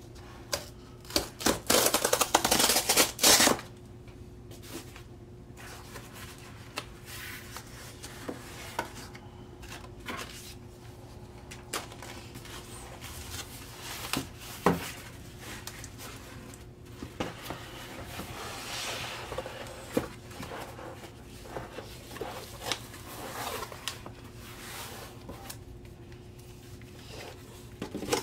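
Cardboard record mailer being torn open, a loud ripping about two seconds in, then quieter rustling, scraping and light taps of cardboard as the lid is folded back and the vinyl LP is slid out.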